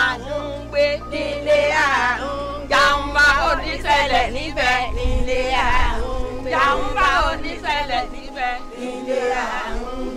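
A group of women singing a traditional Yoruba song together, several voices overlapping in a call-and-response style chorus.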